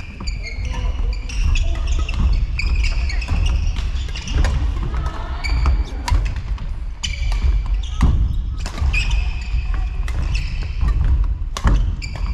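Badminton rally in a sports hall: sharp racket hits on the shuttlecock about every second or so, with short high-pitched shoe squeaks on the court floor between them, over a steady low hall rumble.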